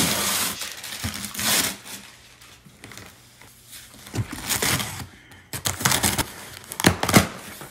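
Packing tape being cut and pulled off a cardboard box, the cardboard flaps scraping and rustling, in several short noisy bursts with the sharpest near the end.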